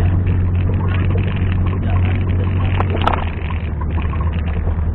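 Off-road vehicle engine running steadily with a deep, low hum, and a short click about three seconds in.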